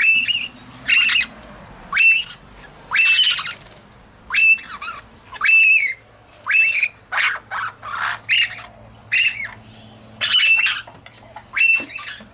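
Princess parrots squawking: a run of harsh, repeated calls, about one a second, typical of the fledglings begging to be fed.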